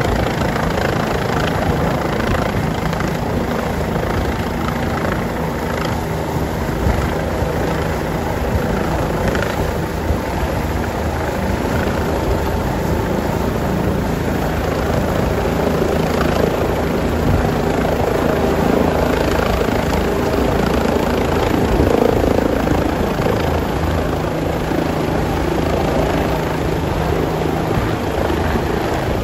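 Helicopter's turbine engine and main rotor running loud and steady as it descends slowly and sets down, with a continuous low rotor drone under broad engine and wash noise.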